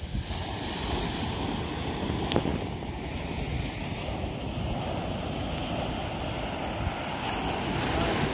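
Ocean surf washing up on the beach, with wind buffeting the microphone. A single sharp click a little over two seconds in.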